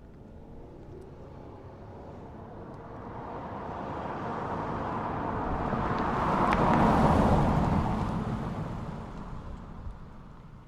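A car driving past: engine and tyre noise grows steadily louder, peaks about seven seconds in, then fades away.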